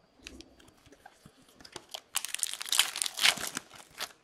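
A hockey card pack wrapper being torn open and crinkled. There are a few light crackles, then a dense spell of crinkling over the last two seconds.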